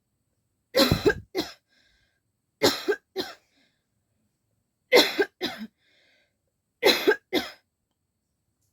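A person coughing deliberately for a coughing challenge: four bouts about two seconds apart, each a quick double cough.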